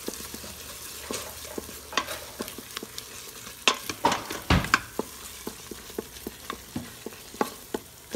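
Wooden spoon stirring and scraping tomato paste and softened vegetables through a roux sizzling on the sauté setting in an Instant Pot's stainless inner pot. Irregular scrapes and taps of the spoon on the pot sound over the steady sizzle, loudest about four to five seconds in.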